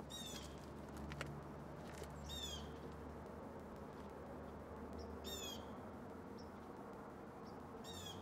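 A bird calling four times, every two to three seconds; each call is a quick run of high, falling chirps. A low steady hum runs underneath.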